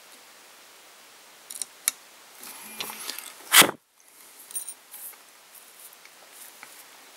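Handling noise at a fly-tying vise: a few light clicks and a rustle, then one loud bump about three and a half seconds in, after which the sound drops out briefly before a few faint clicks.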